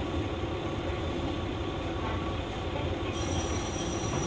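JR West KiHa 120 diesel railcar running, heard from inside the car: a steady low running noise of engine and wheels on rail. About three seconds in, a thin high-pitched wheel squeal joins it.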